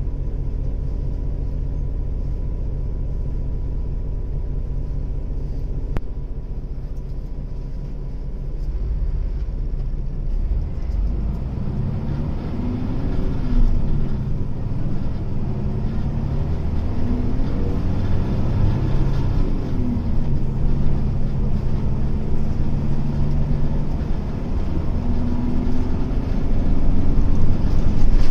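Hino Blue Ribbon city bus diesel engine, heard from inside the bus: a steady low note for about the first eight seconds, then the bus pulls away, the engine pitch rising and falling through the gears and getting louder. The engine has a note somewhat unlike a normal Blue Ribbon's, even though the air conditioning is not running.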